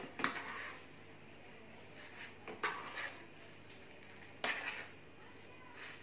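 A fork clinking and scraping against plates in several short bursts of clatter, a second or two apart.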